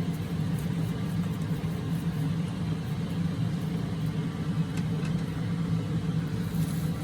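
Steady low mechanical hum, like a motor or fan running, with a few faint soft ticks over it.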